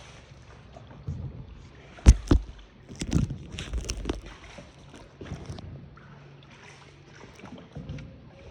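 Small paddle boat being rowed on water: irregular knocks and thumps, the loudest about two seconds in, with a cluster more a second or two later.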